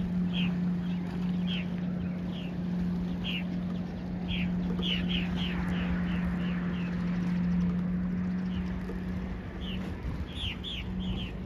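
Small birds chirping, short falling calls coming one at a time and then in quick runs, over a steady low hum and a background hiss of wind and water.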